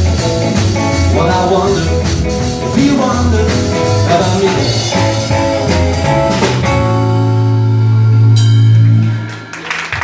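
Live rockabilly trio of electric guitar, upright double bass and drum kit playing the close of a song: the beat stops about seven seconds in and the band holds a final chord, with a cymbal crash, before it dies away near the end.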